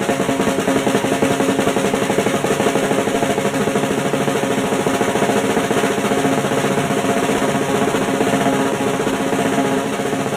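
Fast, unbroken snare drum roll played with drumsticks, holding at an even level.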